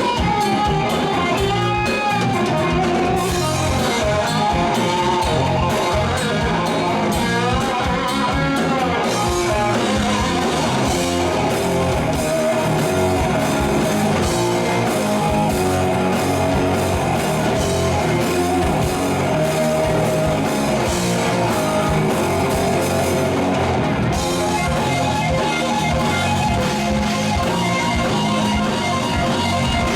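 Rock band playing live: guitar over a drum kit, with bent, wavering notes in the guitar line in the first few seconds and again about eight seconds in.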